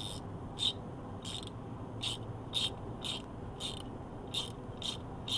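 A 3/8-inch ratchet wrench being worked back and forth on the belt tensioner's adjusting nut, giving a short ratcheting rasp about twice a second, with a low steady hum underneath.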